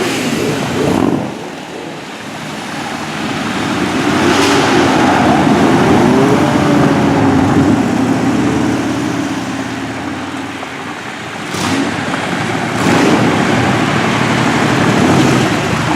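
A stream of motorcycles passing one after another, their engines overlapping and rising and falling in pitch as they go by. The sound swells twice, from about four seconds in and again near the end, with a lull in between.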